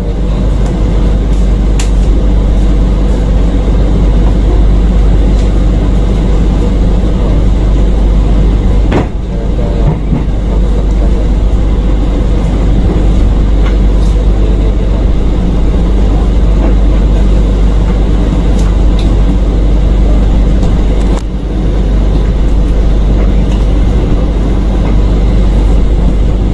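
Steady rumble of a passenger train carriage running, heard from inside the carriage as the train pulls out of a station, with a few sharp clicks along the way.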